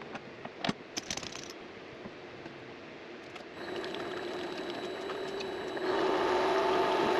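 A few knocks of handling, then a mini lathe's motor switches on and runs steadily with a high whine, growing louder in a step about six seconds in.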